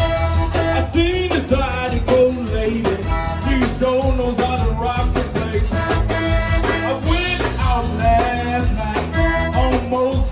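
Live zydeco band playing loudly: accordion, electric bass guitar and drum kit with a steady dance beat.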